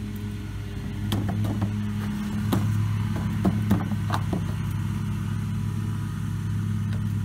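A wooden crate is pried open with a small crowbar: a run of short creaks and knocks as the bar works under the lid, mostly in the first half. Under it is a steady low engine hum, like a vehicle idling.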